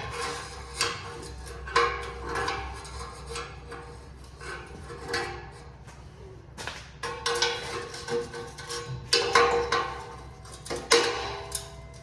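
Irregular metallic clinks and knocks, some with a short ring, from hand tools working on a car's exhaust pipe and clamp.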